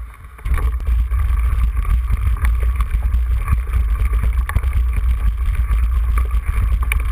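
Wind buffeting hard on the microphone of a camera moving fast along a dirt trail, picking up about half a second in, with frequent small clicks and rattles from riding over the rough ground.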